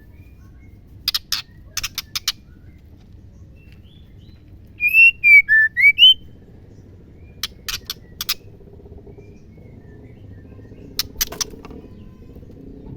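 Female white-rumped shama calling: several short clusters of sharp clicking ticks (the ketrekan call), and near the middle a run of five clear whistled notes that fall and then rise in pitch.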